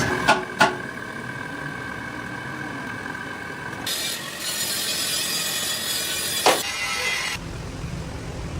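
Heavy metalworking machinery running: a steady whine with a few sharp metal clanks, then a stretch of hissing, grinding-like noise, then a low rumble. The sound changes abruptly several times.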